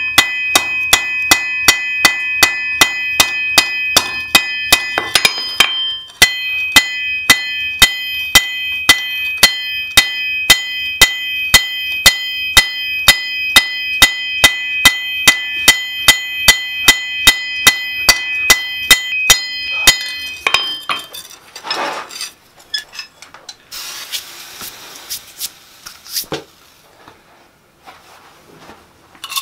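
Hand hammer striking red-hot mild steel flat bar on an anvil, forging a spring, at about two and a half blows a second. The anvil rings loudly and steadily between blows. The hammering stops about twenty seconds in, leaving a few quieter knocks and clatter.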